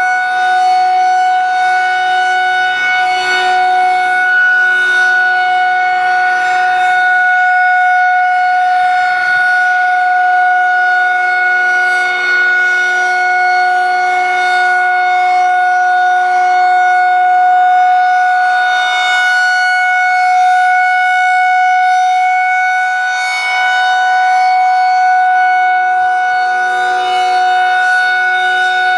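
Federal Signal 2001-130 electromechanical outdoor warning siren sounding a steady tone at full speed. Its pitch holds level while the sound slowly swells and fades as the rotating head sweeps around.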